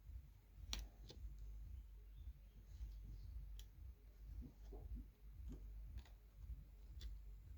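Faint, scattered clicks and taps of small phone parts being handled as the new charging connector goes back into the phone, over a low steady hum.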